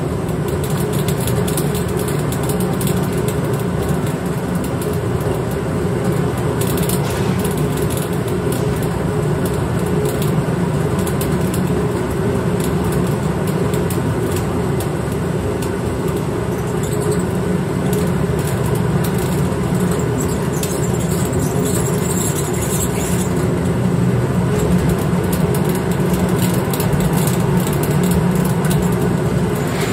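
Malt mill running steadily, crushing malted barley as it feeds from the hopper: a loud, even mechanical drone.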